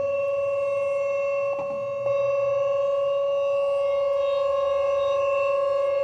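Thunderbolt 1000 and Whelen 2810 siren setup sounding the alert signal: one steady, unwavering tone with overtones, neither rising nor falling. The tone dips slightly with a faint knock about one and a half seconds in, then comes back at full level.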